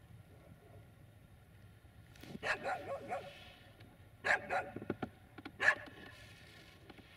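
A dog barking in short runs of a few barks each, beginning about two seconds in, with a single bark near the end.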